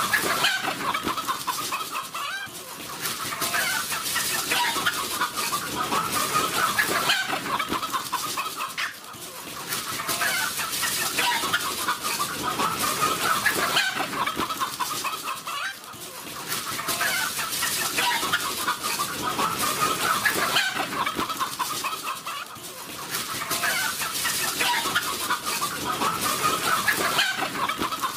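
A flock of chickens clucking together in a dense, continuous din, with the loudness dipping briefly about every six seconds.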